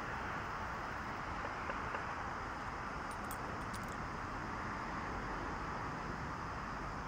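Steady outdoor background noise, an even rush like distant road traffic, with a few faint clicks about three and four seconds in.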